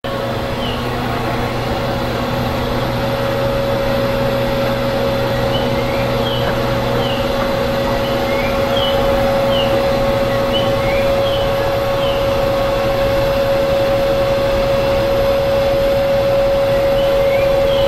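Old-style electric blower on a JNR 115 series EMU motor car (MoHa 114-114), running steadily with a strong single-pitched hum. A lower hum under it fades out about halfway through, and short high falling chirps come and go.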